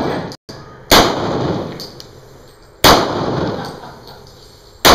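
Three pistol shots from a Springfield XDm, about two seconds apart, each with an echo that trails off over about a second; the third comes right at the end.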